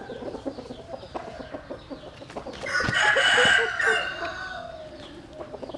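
Rooster crowing once, a loud crow of about a second and a half near the middle, with short clucks before it.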